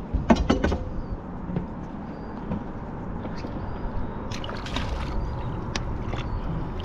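Steady wind and water noise around a small boat, with a quick cluster of clicks and knocks of handling about half a second in. Light splashing about four to five seconds in as a large snook, held by a lip gripper, is lowered over the side into the water.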